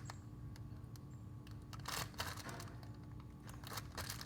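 Plastic zip-top bag being handled and pressed shut around clay: scattered small clicks and a few short rustles.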